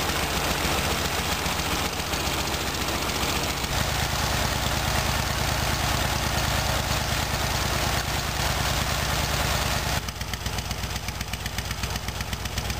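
A 1958 IMZ M-72M motorcycle's side-valve flat-twin engine idles steadily with an even beat. It is running on one cylinder only, because the other has almost no compression. Its note shifts about four seconds in, and near the end the hiss drops away so that the separate exhaust beats stand out.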